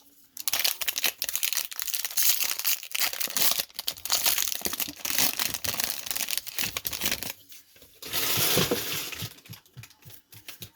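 Foil wrapper of a baseball card pack being torn open and crinkled by hand, in a long stretch of crackling and then a shorter one after a brief pause.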